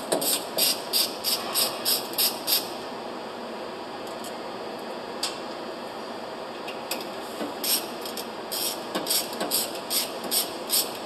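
Hand ratchet wrench clicking as it backs out the bolts of a proximity switch bar, in two runs of about three to four clicks a second with a pause of a few seconds between them.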